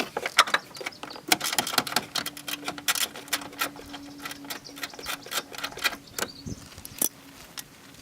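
Dense, irregular clicking and rattling of hand tools and fasteners working the plastic under tray loose from under a Mazda Miata, thinning out after about six seconds.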